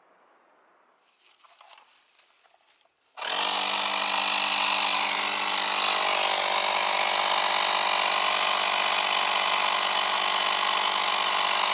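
Faint rustling, then about three seconds in a Yamaha Grizzly 700 ATV engine comes in suddenly and runs at a steady, unchanging pitch.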